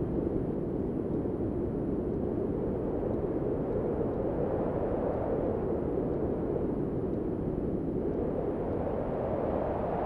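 Steady, low rushing wind with no tune or rhythm, swelling slightly near the end.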